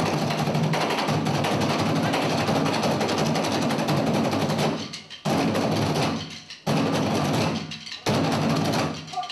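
Percussion ensemble beating barrel-shaped drums with sticks in a fast, dense groove. About two thirds of the way in it breaks into three sudden full-group strikes about a second and a half apart, each dying away before the next.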